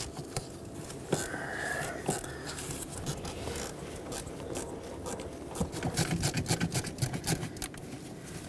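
Ratchet with an 8mm socket loosening an ignition coil's hold-down bolt: small metal clicks and scrapes, a brief squeak about a second in, then a run of quick ratchet clicks, about five a second, in the second half.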